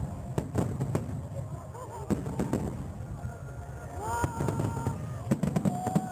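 Aerial fireworks bursting in quick succession, sharp bangs over a constant low booming rumble, with spectators' voices rising in exclamation about four seconds in.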